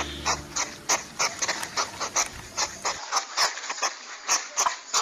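European hedgehog sniffing and snuffling as it forages with its nose in the grass: an irregular run of short, noisy sniffs, about three or four a second.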